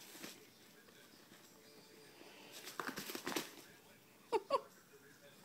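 A rabbit tugging and chewing at a plastic mailing bag, the plastic rustling and crinkling for about a second midway, then two short squeaks close together near the end.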